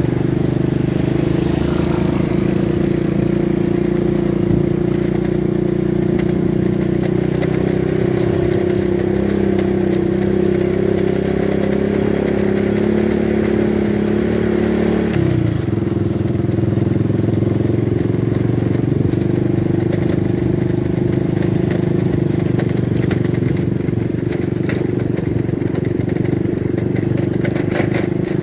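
Motorcycle engine running steadily under way, its note dropping suddenly about halfway through.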